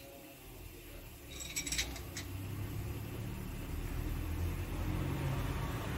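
A bundle of steel engine pushrods clinking together as they are handled and oiled, a quick run of clinks about a second and a half in. A low rumble builds up underneath and is the loudest sound through the second half.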